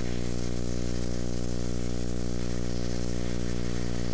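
Stick-welding arc from a 1/8 inch E6011 electrode crackling and hissing during an overhead root pass, under a loud steady electrical hum with a buzz of many harmonics.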